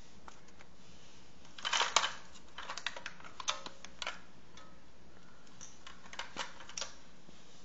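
Handling noise: a quick run of light clicks and clatter about two seconds in, then scattered single clicks over the next two seconds and a few softer ones near the end.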